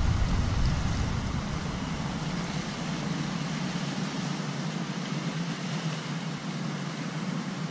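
Steady wind noise on the microphone with sea surf against the rocky shore; the deep rumble is heaviest in the first couple of seconds, then eases.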